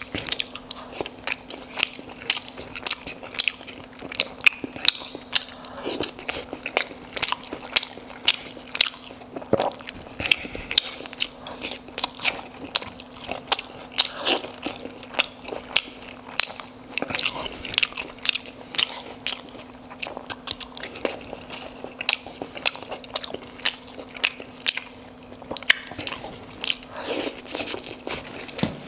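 Close-miked eating of steamed momos dipped in chutney: bites and chewing, with a dense run of short, sharp mouth clicks throughout. A faint steady low hum sits underneath.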